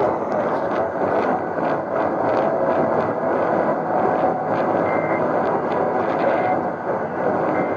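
Radio receiver static: a steady hiss with faint crackles, from a radio tuned to a weak or empty frequency. A few faint short tones break through in the second half.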